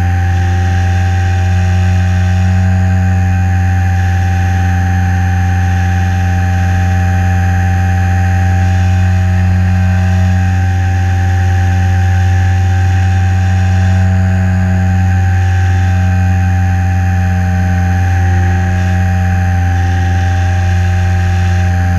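HobbyZone Super Cub LP's electric motor and propeller droning steadily, picked up by a camera mounted on the plane in flight, with a hiss of rushing air. The pitch shifts slightly now and then as the throttle is eased.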